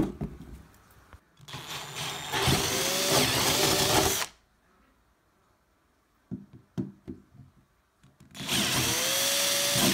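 Power drill boring holes through a wooden door, in two runs of about three seconds each, the motor's pitch rising as it spins up. A few light knocks come between the runs.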